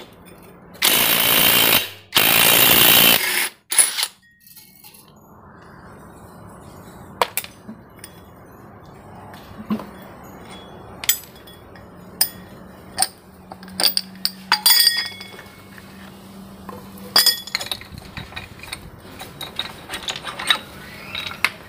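Two loud bursts from a compressed-air tool, each about a second long, close together near the start. After them come scattered short metal clinks and taps as scooter CVT pulley parts are handled.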